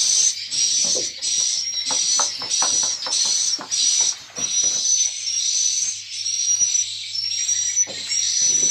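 Swiftlets' high-pitched twittering chirps, repeating in quick, regular phrases, with scattered faint clicks and knocks beneath.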